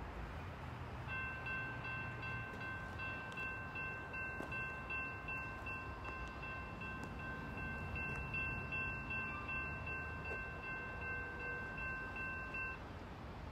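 Faint, distant five-chime Nathan K5LA air horn on a Norfolk Southern GP60 locomotive, held in one long steady blast that starts about a second in and cuts off near the end.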